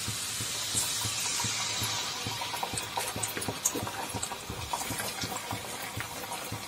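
Pua pitha batter of flour, semolina and sugar frying in hot oil after being spooned into the pan: a steady sizzle and bubbling with many small pops, the hiss strongest in the first couple of seconds.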